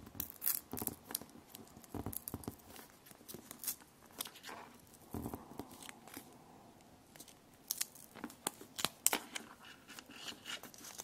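Hands unwrapping a coiled Lightning cable from its plastic packaging: irregular small crinkles, clicks and rustles of plastic.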